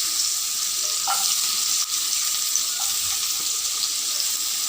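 Chopped onion sizzling steadily in hot oil and butter in a frying pan, with a few faint pops.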